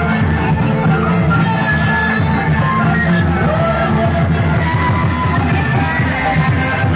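Loud music with singing over a steady, driving drum beat and held melody lines.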